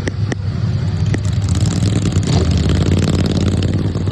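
Racing lawnmower engines running steadily at speed, a loud low drone. Three short sharp clicks come in the first second or so.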